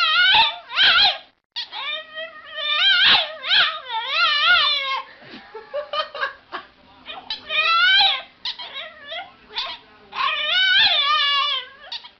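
A dog howling in a series of drawn-out, warbling calls whose pitch wavers up and down, as if singing along. There is a short break about one and a half seconds in.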